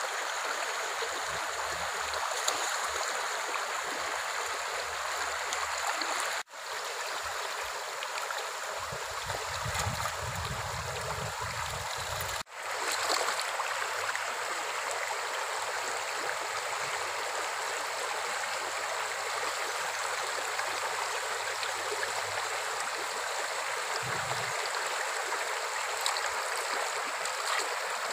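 Shallow stream running over rocks with a steady, even rush of water. The sound cuts out for an instant twice.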